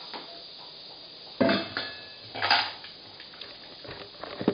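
An empty bowl clattering: two sharp clanks about a second apart, each with a brief metallic ring, then a few lighter clicks near the end.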